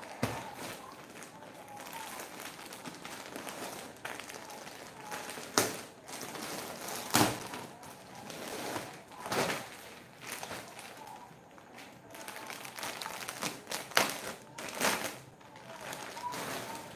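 Clear plastic garment packaging rustling and crinkling as it is handled and a kurti is pulled out of its bag, with several louder crackles.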